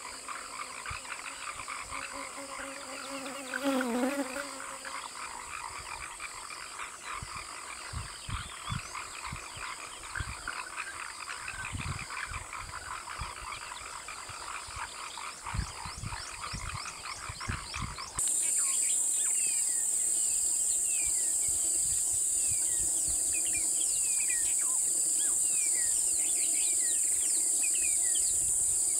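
Wild bush ambience: a dense chorus of chirping calls over a steady high insect drone, with one short low call about four seconds in. About 18 seconds in it cuts abruptly to a louder, higher insect drone with birds chirping over it.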